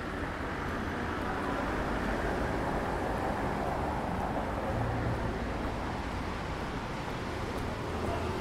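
Steady outdoor ambience: an even, continuous rush of noise with a low rumble beneath it and no single event standing out.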